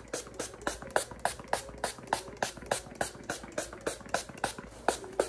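An Elf Mist & Set setting spray bottle being worked in a quick, even rhythm, about three to four short sharp sounds a second.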